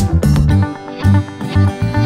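Background music: plucked guitar over a pulsing bass.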